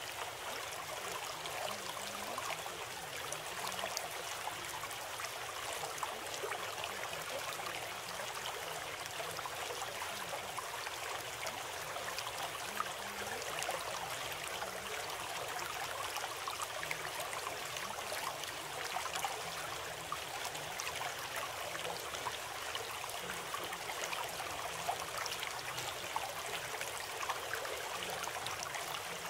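Steady, unbroken rushing-water noise, like a flowing stream, with a fine flickering texture and no change in level.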